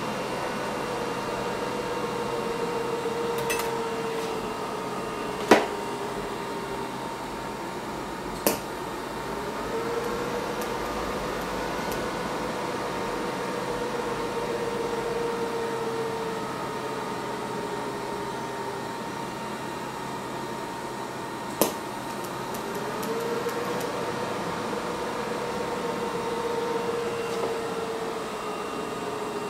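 TIG welding on a steel hydraulic line with an HTP Invertig 221: a steady hum with a whine that swells and sags over several seconds, three times, and three sharp clicks.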